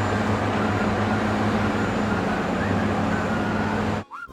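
Heavy trucks driving, a steady low engine rumble with road noise. It cuts off suddenly about four seconds in.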